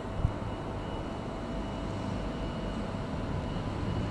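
Irish Rail 29000 class diesel multiple unit approaching at low speed: a steady low rumble of its engines and wheels, slowly growing louder, with one short knock about a quarter second in.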